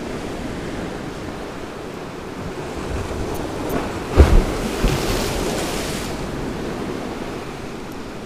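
Sea waves washing on the shore, with wind on the microphone. A wave builds about three seconds in and breaks about four seconds in with a loud low thump, followed by a hissing wash that dies away a couple of seconds later.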